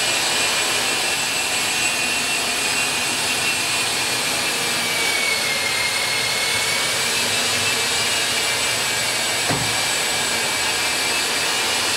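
Sunnen line hone's electric drive spinning a honing mandrel through a six-bolt 4G63 block's main bearing housing bores: a steady high whine, its pitch sagging slightly about midway as it loads up, with a short knock about nine and a half seconds in. The main housing bores are being honed to size to tighten the main bearing clearance.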